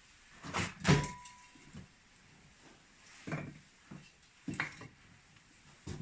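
Firewood logs knocking as they are laid one by one into a brick stove's firebox: about five separate wooden knocks, the loudest about a second in with a short ring after it.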